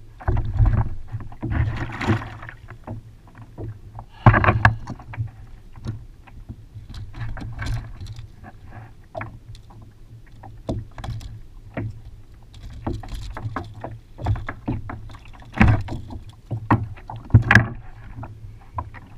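Irregular knocks, bumps and clatter on a fishing kayak as a landed fish and gear are handled aboard, over a steady low rumble. The sharpest knocks come about four seconds in and twice near the end.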